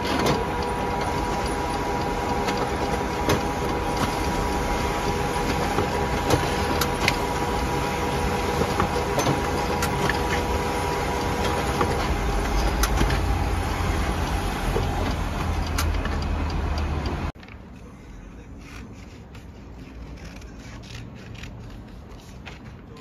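Desktop printer running through a print job: a steady mechanical whir with a two-note motor whine and scattered clicks of the feed and print head, stopping abruptly about 17 seconds in. After that, quieter paper handling with short snips of scissors cutting paper.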